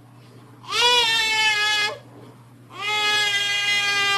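Two drawn-out, howl-like vocal calls, each held on one steady pitch for more than a second, with a short pause between them.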